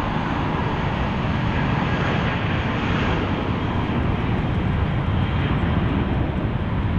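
Boeing C-17A Globemaster III's four Pratt & Whitney F117 turbofan engines running loud and steady as the jet moves along the runway. A faint high whine joins about three seconds in.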